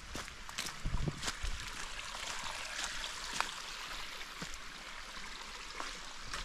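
Footsteps on a hiking trail, irregular steps about every half second to a second, over a steady rush of flowing water like a small creek. A low thump about a second in.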